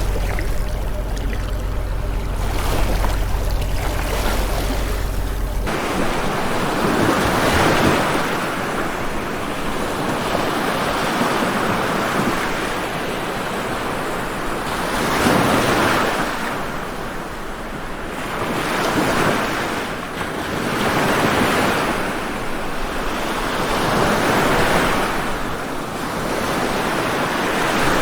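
Sea waves washing onto a shore, the surf swelling and ebbing every few seconds. About six seconds in, the sound cuts abruptly from a duller water sound with a heavy low rumble to brighter, fuller breaking surf.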